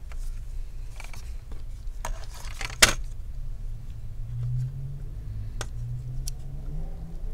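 Handling clatter of a bare laptop motherboard being turned over and set down on a table, with one sharp knock about three seconds in, then a few small clicks of a precision screwdriver working at the cooling fan's screws.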